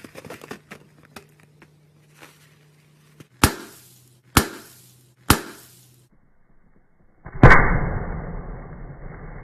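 Slime being played with: faint crackles and clicks, then three sharp pops or slaps about a second apart. Near the end comes a louder sudden burst that trails off into a dull, muffled rustle.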